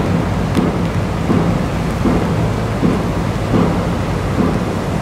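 Wind buffeting the microphone in a loud low rumble that swells about once a second, over a steady low hum.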